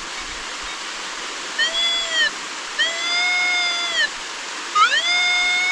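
Metal detector in goldfield mode giving three sustained beeps as it passes over a buried target, each tone gliding up at the start and dipping at the end, the last the longest. The target is a penny. A steady rush of the waterfall and stream runs underneath.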